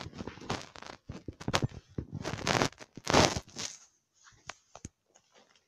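Close rustling and scraping handling noise in a run of bursts, loudest between about two and three and a half seconds in, then a few light clicks near the end.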